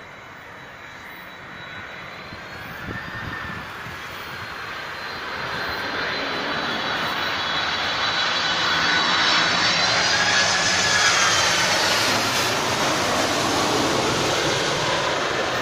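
An aircraft flying over, its rushing engine noise swelling steadily to a peak past the middle, with a faint high whine that shifts in pitch.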